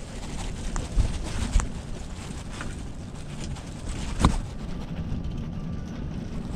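Strong wind buffeting the microphone: a steady low rumble with a few sharp gust thumps, the loudest a little past four seconds in.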